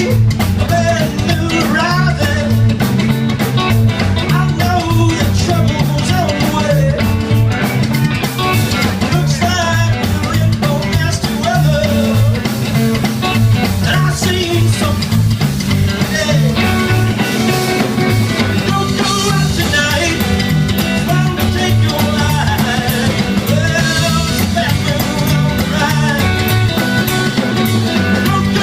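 Live rock band playing an up-tempo song with electric guitar and drum kit over a bass line moving note to note.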